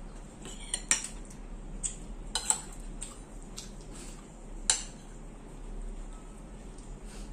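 Metal forks clinking and scraping on ceramic plates and bowls during a meal: a scattering of short, sharp clinks, the loudest about four and a half seconds in.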